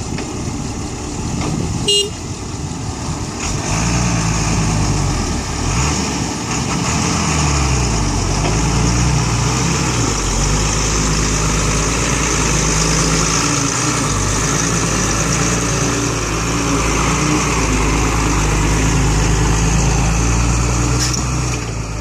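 Diesel engine of a loaded Isuzu six-wheel dump truck running and revving, its pitch rising and falling from about four seconds in before it settles into a steady pull. A brief horn toot comes about two seconds in.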